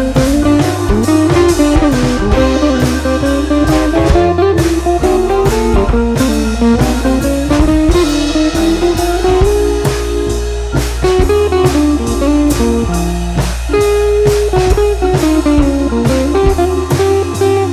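Background music: guitar melody over drums with a steady beat.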